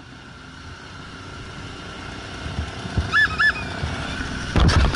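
Motorcycle engine and wind noise from a riding motorcycle, growing louder. A horn beeps twice in quick succession about three seconds in. Near the end comes a loud, rough burst of thumping noise as the motorcycle goes down.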